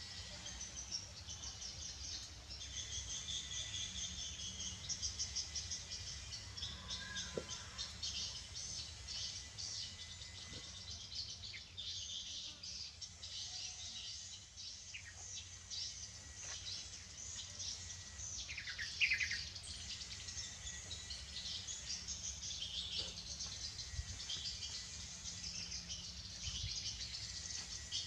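Outdoor ambience of insects chirring in a fast, high-pitched pulsing trill, with birds chirping now and then and one louder bird chirp a little past halfway.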